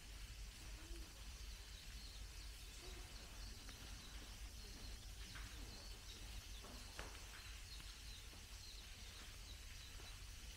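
Faint outdoor ambience: a steady low rumble under a quiet hiss, with a few faint high bird chirps scattered through.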